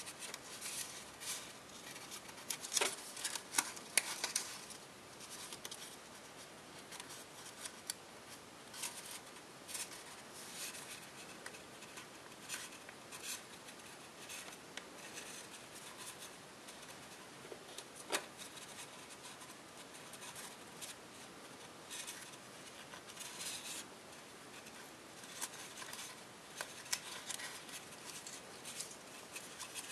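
Copper tissue foil being folded and creased by hand: crisp rustling and crinkling with scattered sharp crackles, the strongest cluster about three to four seconds in and a single sharp crack about eighteen seconds in.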